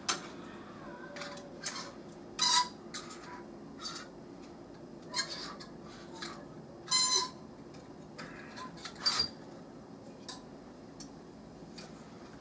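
A squirrel feeding at a food tray: irregular sharp clicks and knocks, a few louder ones ringing briefly, as it handles food against the tray.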